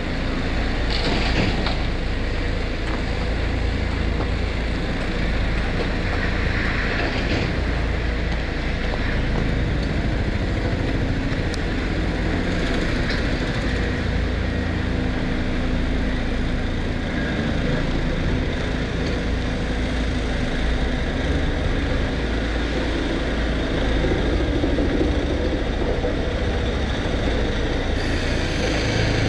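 Heavy diesel earthmoving machinery running steadily with a deep, continuous engine rumble, with brief swells of higher hiss about a second in and again around seven seconds.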